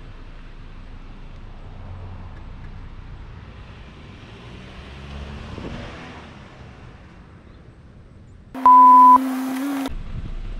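Steady road and engine noise of a car on the move. About eight and a half seconds in, a very loud, distorted electronic beep with a steady high tone lasts about a second.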